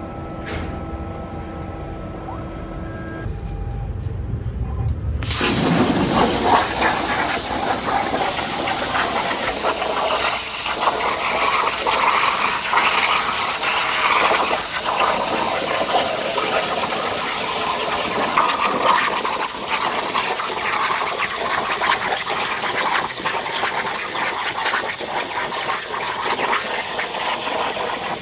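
CNC plasma cutter firing its arc about five seconds in after a low machine hum, then a loud, steady hiss with crackle as it cuts through sheet metal.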